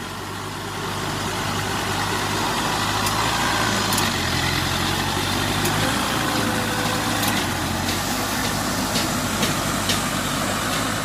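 Engine of a riding cage-wheel paddy tiller running steadily as it works through rice-field mud.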